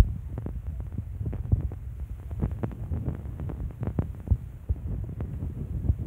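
Microphone handling noise: an irregular low rumbling and thumping with scattered small clicks, from a handheld phone being moved.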